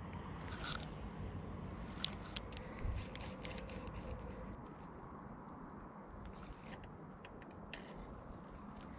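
Spinning reel being cranked to retrieve a light jig: a faint whir from about two seconds in to about halfway, with scattered small ticks and one sharp click near the start of it, over a low steady rumble.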